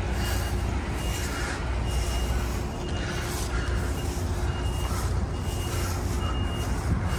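A vehicle's reversing alarm beeping, a short high tone a little more than once a second, over the steady low rumble of an engine running.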